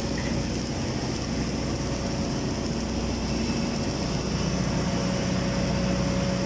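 Steady machinery hum from an automatic girth welding rig running a submerged arc weld, with a couple of constant tones and a high hiss underneath and no breaks.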